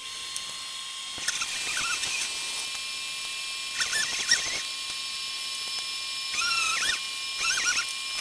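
Sandpaper squeaking against the steel of a chopper blade during wet hand sanding, in four short bouts of squeaks, over a steady high hum.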